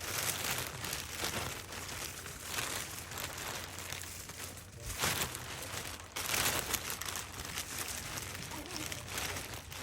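A bag rustling and crinkling, handled unevenly as things are stuffed into it.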